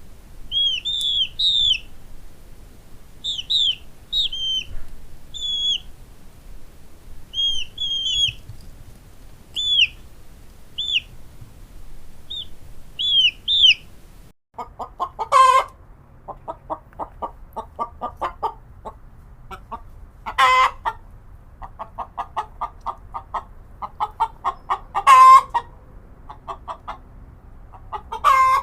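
Chickens: for about the first half, high, thin peeping chirps come in short groups of two or three. After a brief break, a hen clucks in quick runs, broken about every five seconds by a loud squawk.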